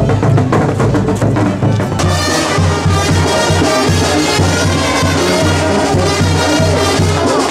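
Music with brass instruments and a steady beat; about two seconds in it changes to a track with an even, pulsing bass.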